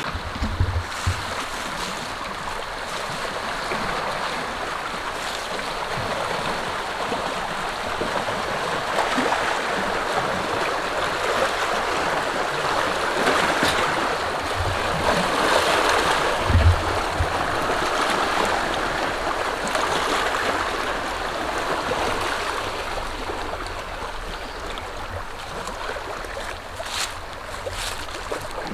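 Steady rushing noise that swells and eases, typical of wind and water at a shoreline, with a low thump about half a second in and another a little past the middle.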